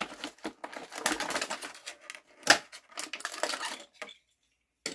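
Clear plastic blister packaging crackling and clicking as a diecast model truck is taken out of it, with one sharp click about two and a half seconds in. The sound cuts off suddenly shortly before the end.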